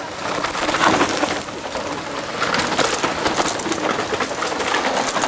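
Mountain bike tyres crackling and crunching over dry dirt, fallen leaves and twigs as riders come down a steep trail past the spot, a dense run of small clicks and rustles.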